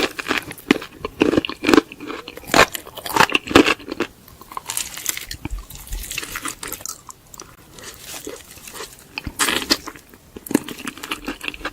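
Close-miked crunching and chewing of crispy fried chicken: irregular crackly bites, dense at first, sparser through the middle, and a fresh run of crunches near the end.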